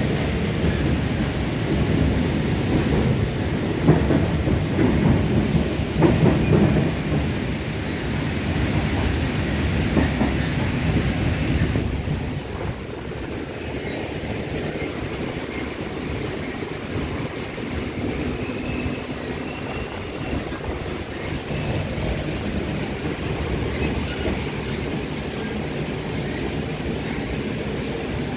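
Old Toshiba-built metro train running along the track, heard from inside the car: a steady rumble of wheels on rail, loudest about four to seven seconds in, with brief faint high squeals from the wheels later on.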